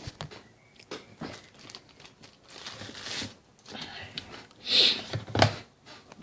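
Rustling and crinkling as a smartphone's box and packaging are handled, with light clicks and small knocks. Near the end there is a brief loud rustle, followed by a sharp knock.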